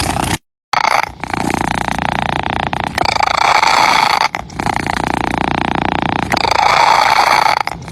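A domestic cat purring: a continuous rattling purr that swells and eases in phases of about one and a half to two seconds as the cat breathes in and out. It cuts out for a moment near the start.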